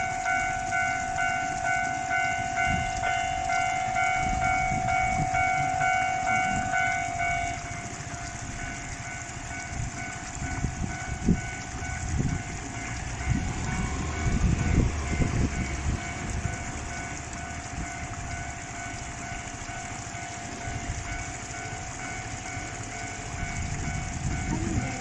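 Japanese railway level-crossing bell ringing its steady clang, about two strikes a second. About seven seconds in it drops to a faint ring, under low rumbling with a few thumps.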